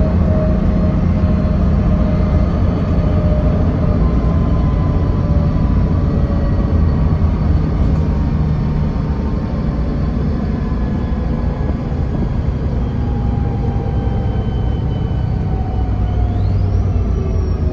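City bus on the move, heard from inside the passenger cabin: a steady engine and road rumble with a thin whine that slowly falls in pitch. Near the end a higher whine rises quickly and then eases off.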